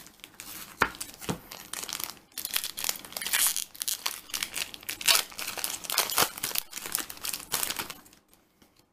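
Foil Yu-Gi-Oh! booster pack wrapper being torn open and crumpled in the hands: a few sharp crackles at first, then dense crinkling from about two seconds in, stopping near the end.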